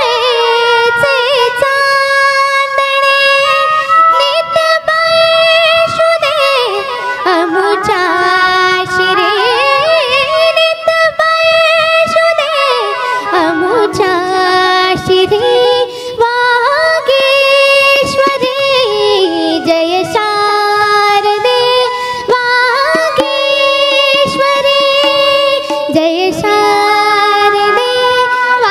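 A girl singing a long wordless melodic passage of held notes and sliding runs over a steady drone.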